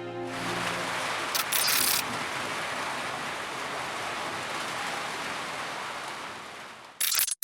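Heavy rain pouring, a steady loud hiss, with two brief louder crackling bursts, one about a second and a half in and one just before it cuts off.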